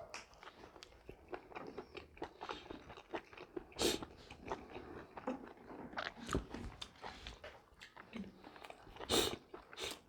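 Close-miked chewing and biting of food, with small wet clicks and crunches throughout and two louder bites, about four seconds in and near the end.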